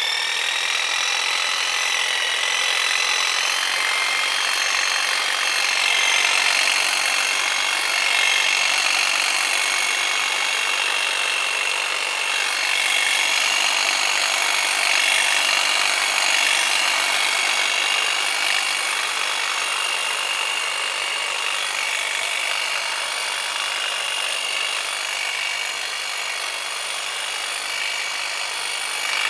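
Hedge trimmer running steadily: a high motor whine over the buzzing chatter of the blades. The whine rises slightly in pitch over the first few seconds, then holds steady.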